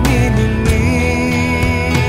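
Music: an instrumental passage of a song, a wavering melody line over steady held chords.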